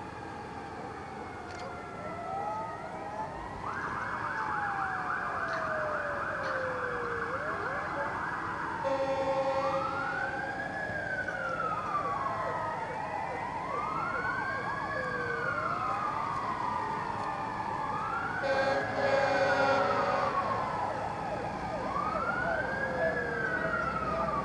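Several emergency-vehicle sirens wailing at once in overlapping rising and falling sweeps, one switching to a fast yelp for a few seconds near the start. Twice, a lower steady horn tone sounds briefly over them.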